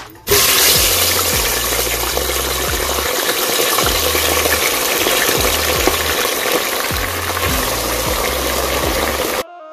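Plantain pieces deep-frying in a pot of hot oil: a loud, dense sizzle that starts suddenly just after the start and cuts off suddenly near the end.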